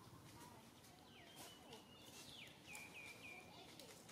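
Faint high-pitched animal calls: two falling chirps, then three short hooked notes in quick succession about three seconds in.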